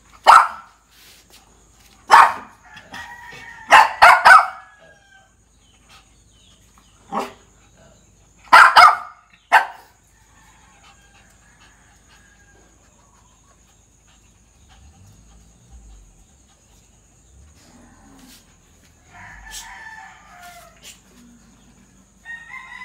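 A dog barking in short, sharp, loud barks, several in quick succession, over the first ten seconds, then quieter, softer vocal sounds near the end.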